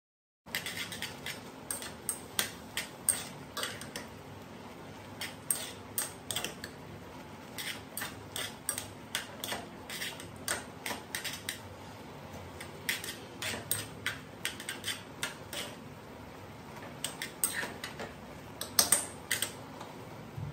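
Metal chopsticks clinking and scraping against a stainless steel saucepan as noodles in thick black sauce are stirred and tossed: irregular sharp clicks, several a second at times, over a low steady hum.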